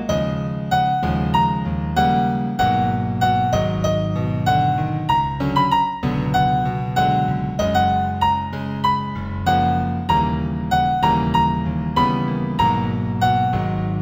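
New Age instrumental music in F major: a keyboard melody of single notes over sustained low chords.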